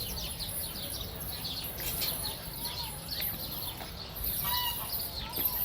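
Many small birds chirping together: a quick, overlapping run of short, high, falling chirps, with a few lower, drawn-out calls in the second half.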